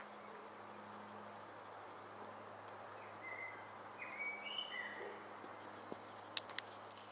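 Faint outdoor background hiss with a few short, high bird chirps about three to five seconds in, and two sharp clicks near the end.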